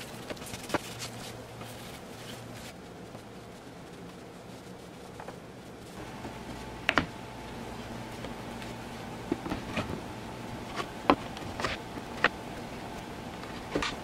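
Layers and parts of a large wooden padlock being set down and stacked: a series of sharp wood-on-wood knocks, starting about halfway through, over a steady hum.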